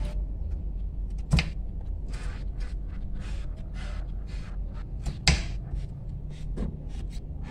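Kitchen knife cutting white radish on a round wooden chopping board: a run of short crisp cuts, with two sharper knocks of the blade on the board, about a second and a half in and again just after five seconds. A steady low hum runs underneath.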